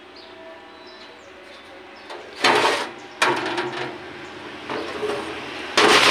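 Aluminium cylinder head being handled and turned over on a steel workbench: metal scrapes and knocks, the first about two and a half seconds in, a sharp one just after, a softer one near five seconds, and the loudest scrape near the end.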